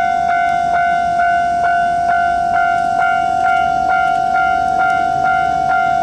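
Japanese railway level-crossing warning bell ringing loudly and steadily, about two strikes a second: the crossing's alarm while its barriers are lowered for an approaching train.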